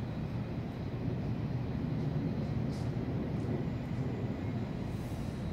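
Steady low rumble of Manhattan city ambience, with a couple of faint high ticks.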